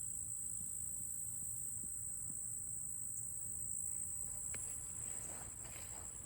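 A steady chorus of insects: one continuous high-pitched shrill tone that holds level throughout, with a few faint ticks in the second half.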